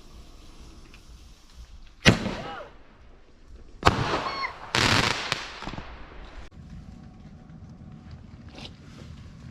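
Garden fireworks going off. There is a sharp bang about two seconds in, then a second bang near four seconds with a short whistle after it, then about a second and a half of loud hissing crackle that cuts off suddenly.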